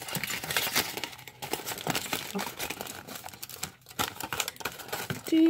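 Aluminium foil crinkling as hands crumple and press it into shape, a dense run of irregular crackles.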